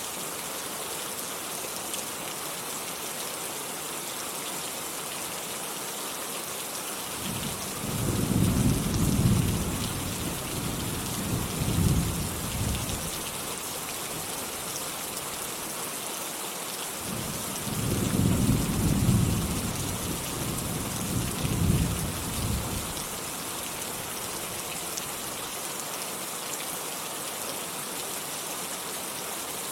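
Steady rain hissing, with two low rolls of thunder about ten seconds apart, each rumbling for about five seconds in two swells.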